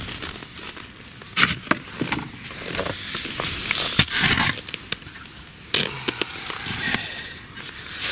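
Handling noise: a camera's microphone rubbed and bumped against a padded winter jacket as it is moved and set down, a crackly rustling with several sharp knocks.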